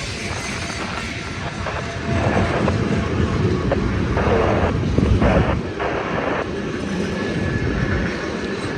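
Freight train cars rolling past on the rails: a steady, loud rumble and clatter of steel wheels, louder for a few seconds in the middle.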